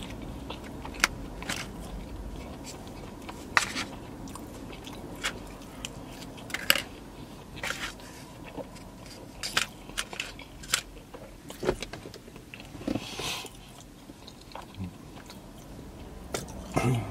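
A person eating close to the microphone: chewing, with irregular small clicks and crunches.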